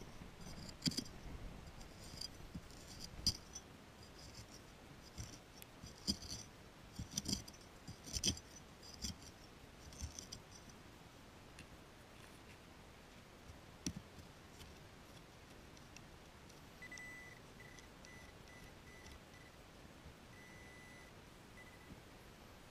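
Faint scattered clicks and scrapes of a spade working soil in a dug hole, fading out after about ten seconds. Near the end comes a faint, broken high beeping.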